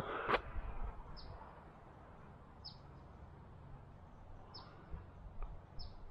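A bird repeating a short, high, falling chirp about five times, one every second and a half or so. A brief scuff and click right at the start.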